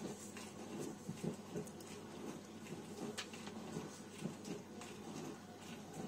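Pages of a paper instruction booklet being handled, rustling and crinkling with small irregular scratches and taps.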